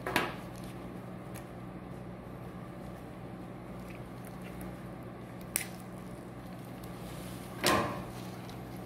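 Plastic syringe and catheter fittings handled during a saline flush: three short clicks or knocks, one just after the start, a smaller one past the middle and the loudest near the end, over a steady low hum.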